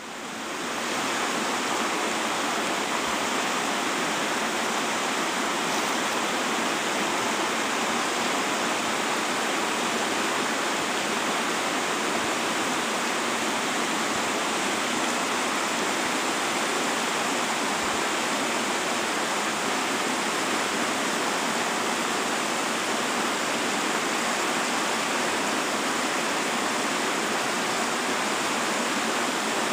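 River water rushing steadily over rocks in a shallow riffle: a constant hiss of flowing water that fades in over the first second and then holds even.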